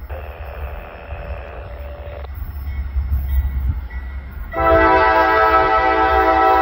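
Norfolk Southern diesel locomotive approaching with a steady low rumble and a hiss in the first two seconds. About four and a half seconds in, its multi-chime air horn starts a loud, long blast that is still sounding at the end.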